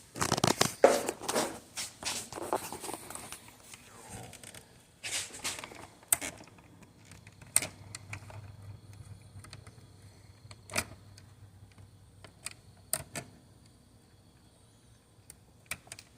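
Small tool scraping and picking at a burnt surface-mount LED on an LED strip, popping off its top to expose the bottom layer. A rustle of scraping comes in the first few seconds, then scattered sharp clicks.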